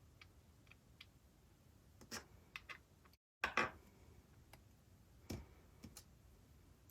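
Scattered light clicks and taps from small 3D-printed plastic parts and magnets being handled, the loudest cluster about a third of the way in.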